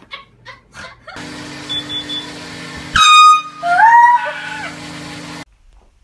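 A sudden, very loud air horn blast about three seconds in, over a steady low hum. It is followed at once by a second, longer high sound that bends up in pitch, and everything cuts off about a second later.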